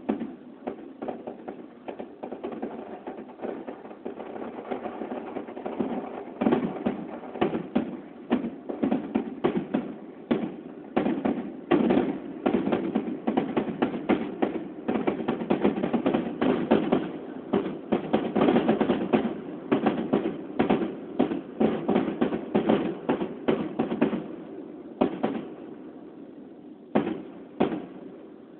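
Fireworks finale: aerial shells bursting in a rapid string of bangs, several a second, thickening into dense volleys after a few seconds, then thinning to a few last bangs near the end.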